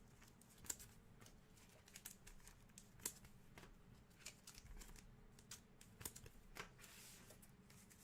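Faint, irregular clicks and light rustles of 2021 Panini Mosaic football trading cards being handled and flipped through by hand, over near silence.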